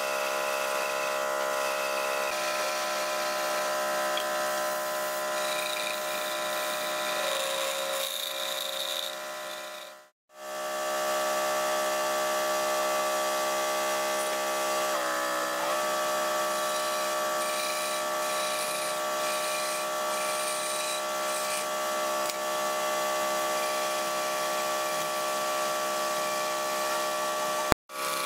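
Wood lathe motor running with a steady whine while a hand chisel cuts a spinning wooden spindle, scraping and peeling off shavings. The sound drops out briefly about ten seconds in and again near the end.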